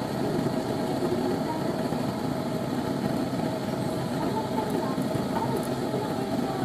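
Lampworking burner flame burning steadily, a low, even rushing noise with no breaks.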